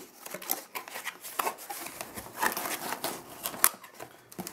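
Cardboard product box being opened by hand: irregular rustling and scraping of cardboard flaps and a paper tab, with sharp clicks and taps, the loudest one near the end.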